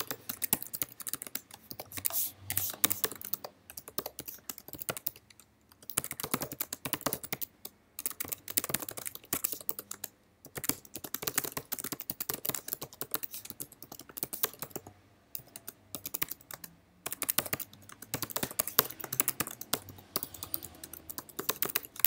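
Typing on a computer keyboard: fast runs of key clicks lasting a few seconds each, with short pauses between them.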